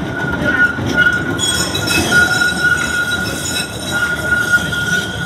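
Z-class tram passing, its steel wheels squealing on the rails in a steady high tone, with higher squeal tones joining about a second and a half in, over the rumble of the running gear.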